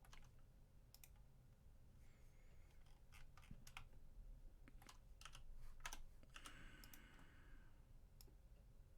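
Faint, uneven clicking of a computer keyboard and mouse, about a dozen scattered taps, over a low steady room hum.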